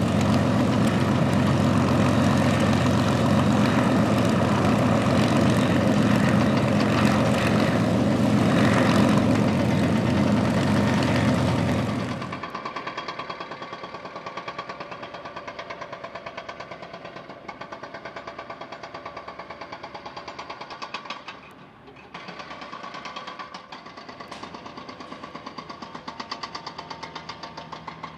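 A piston aircraft engine running steadily and loudly, stopping abruptly about twelve seconds in. After that, a jackhammer hammering in rapid, even blows, with two short pauses.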